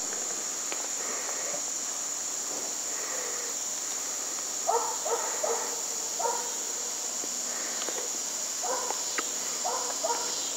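A steady, high-pitched chorus of insects, with a distant animal giving short barking calls in small clusters: four in quick succession a little under halfway through, and several more near the end.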